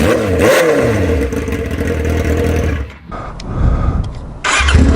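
Yamaha R6 inline-four engine running with its exhaust pipe removed, blipped once early on and falling back to a steady idle. The sound drops out briefly about three seconds in and comes back louder near the end.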